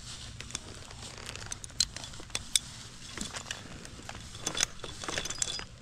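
Scattered clicks, scrapes and rustles of a tree climber's rope, harness hardware and boots shifting on a limb, with no steady machine sound.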